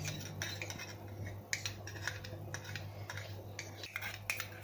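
A spoon clinking and scraping against a cooking pot in a string of irregular light taps, as ingredients are added to a decoction on the stove.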